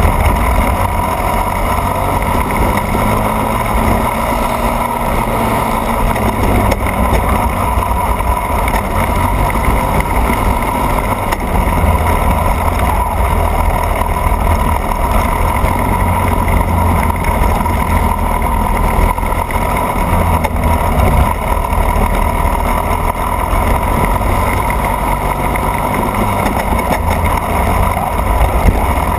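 Racing kart engine running hard on track, its revs rising and falling through the corners, with heavy wind buffeting on the camera microphone.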